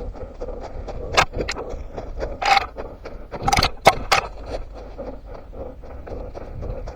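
A runner's quick, regular footfalls on forest ground, with leaves and brush scraping and a few louder cracks and rustles between about one and four seconds in.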